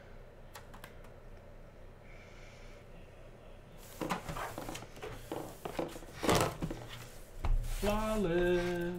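A cardboard trading-card box being handled and turned in the hands: rubbing and scraping against the hands, with a dull knock about six seconds in. The first few seconds are quiet.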